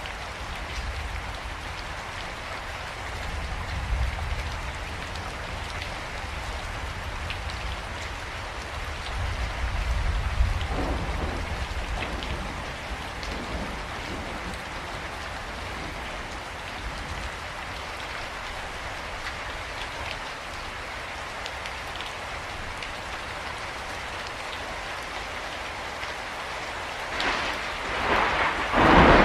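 Steady rain falling, with low rolls of thunder swelling twice and a louder thunderclap near the end.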